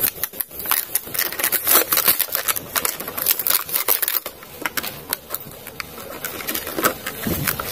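Plastic blister packaging crinkling and its card backing tearing as it is pulled apart by hand, a dense run of irregular crackles and rustles.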